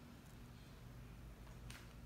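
Near silence: faint, steady low room hum, with a single faint click near the end.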